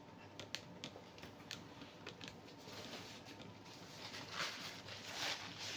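Faint handling noises from sandals being handled: a scatter of light clicks and taps, then soft rustling that grows a little toward the end.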